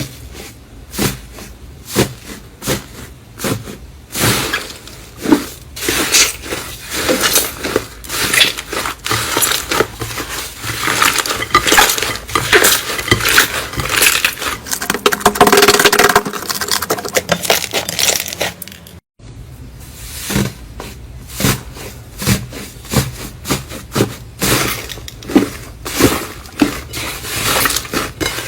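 Slime being squeezed, pressed and poked by hand close to the microphone, making many quick sticky clicks and crackles, with a short break about 19 s in where the clip changes.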